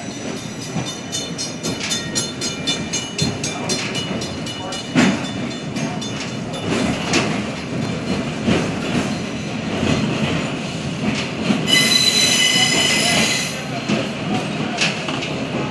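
Steam-hauled train's cars rolling along, heard from the caboose, with the wheels clattering and rattling over the rails. A high-pitched wheel squeal lasts about two seconds near the end.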